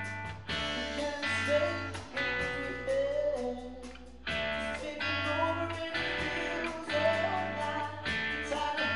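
Rock band playing live: electric guitar, bass guitar and a drum kit, with the electric guitar loud in the mix. A singer's voice comes in over the band in short phrases from a few seconds in.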